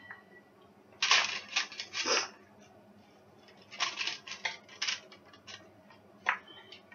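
Sticky raw granola mix scraped out of a bowl with a spatula onto a paper-lined baking tray: short bursts of scraping and rustling, about a second in, around the middle and once more near the end.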